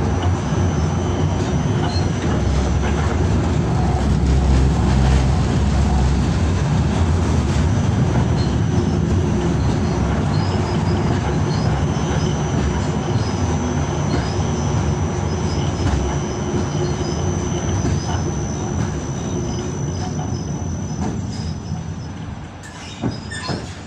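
Tram running along street rails, heard from inside the car: a steady rumble of wheels on track with a thin, high whine over it. It dies down near the end as the tram slows to a stop.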